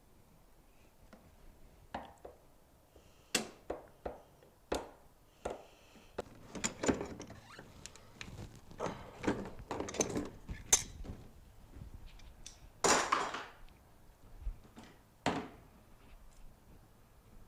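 Knocks, clunks and clicks of a wiper arm being worked loose from the wiper motor's pivot shaft, irregular and repeated, with a longer scraping rattle about 13 seconds in.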